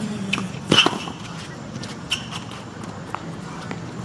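Tennis rally on a hard court: racquets striking the ball back and forth, with ball bounces and shoe squeaks between the hits. The loudest strike comes just under a second in, with lighter knocks through the rest.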